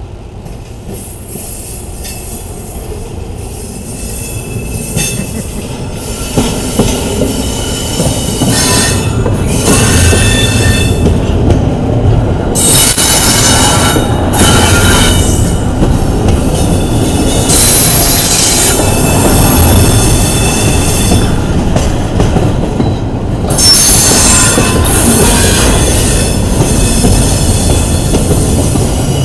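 Intermodal freight train rolling slowly by, close up, its cars' wheels rumbling on the rails with high-pitched flange squeal that comes and goes several times as it goes through the curves and switches into the yard. The sound grows louder over the first several seconds and then stays loud.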